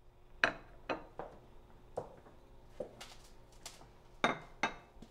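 Glasses and dishes clinking on a table: a string of sharp, separate clinks and knocks, some with a brief ring, the loudest about half a second in and two more close together near the end.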